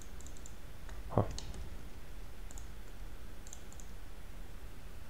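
Light computer mouse clicks, several in quick pairs, scattered over a steady low hum. One short dull thump about a second in is louder than the clicks.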